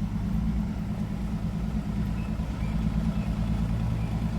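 Dump truck engine running steadily, a low even hum.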